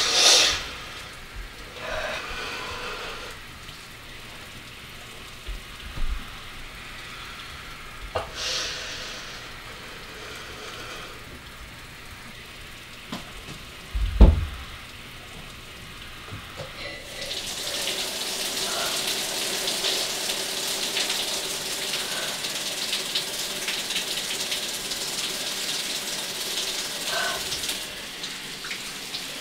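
A few short breathy sounds, then a single heavy thump about halfway. Shortly after, a shower starts and runs steadily with an even hiss of falling water.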